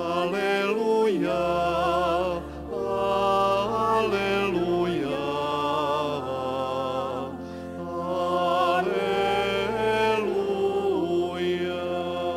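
Liturgical chant: a voice sings long, slow notes over sustained accompanying chords, likely the sung Gospel acclamation just before the Gospel is read.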